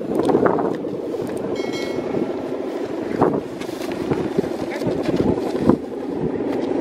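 Wind buffeting the microphone in a steady rush, with a few sharp knocks and rustles.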